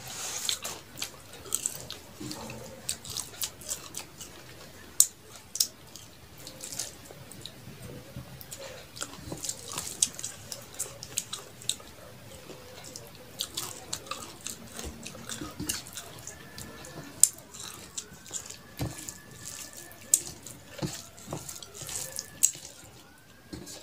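Close-miked wet chewing and mouth sounds of someone eating rice and curry by hand: a steady run of lip smacks and squelching clicks. Near the end comes soft squishing of rice being mixed by fingers on a steel plate.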